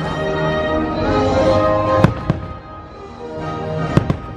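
Fireworks bursting: a few sharp bangs, about two seconds in and again near the end, over the fireworks show's music of long held notes.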